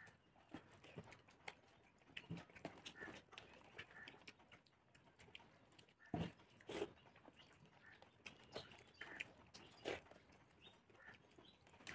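Faint eating sounds: scattered soft clicks and smacks of chewing and of fingers mixing rice on plates, a little louder about six seconds in and again near ten seconds.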